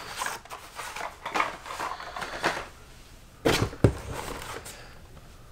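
Blister-carded Hot Wheels cars being handled: plastic blisters crinkling and card backs rustling, with two louder knocks about three and a half seconds in.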